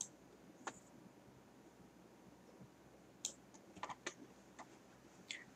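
A handful of faint computer mouse clicks, separate and irregular, over near silence.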